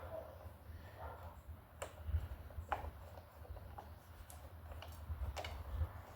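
Scattered light clicks and taps of metal parts as new brake pads are worked into the brake caliper of a BMW R1200RT motorcycle, over a low handling rumble.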